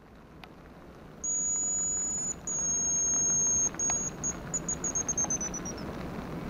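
Hazel grouse lure whistle blown to imitate the hazel grouse song: two long, very high whistles, then a run of short notes falling slightly in pitch. The lure has gone out of tune over the winter and gives a false note, which is meant to pass for a young grouse.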